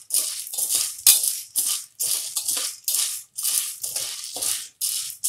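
Metal spatula stirring dry popcorn kernels in oil inside an aluminium pressure cooker: a rhythmic rasping rattle of kernels scraped across the pan, about two to three strokes a second.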